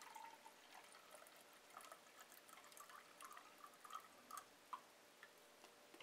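Sodium hypochlorite solution poured in a thin stream from a plastic jug into a glass beaker: faint trickling and bubbling as the beaker fills, with a few light ticks about four to five seconds in.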